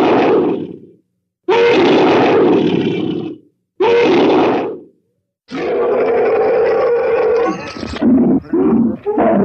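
Glyptodont creature sound effects: a string of grunting, roaring animal calls. There are four calls with short silences between them; the last is long and breaks up into shorter grunts near the end.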